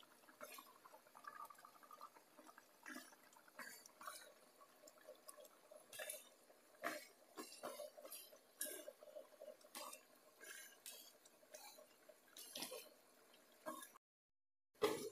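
Faint, irregular clinks and taps of a spoon against a bowl, with small wet sounds as it stirs a thin curry.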